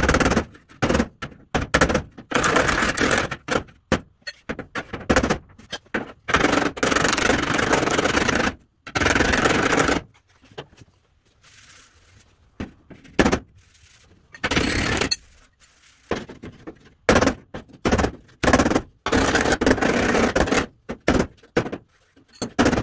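Hammer-and-dolly work on the steel fender of a 1936 Chevy truck: runs of quick metal-on-metal hammer blows alternating with longer scraping strokes across the panel, as the dents are bumped and worked flat.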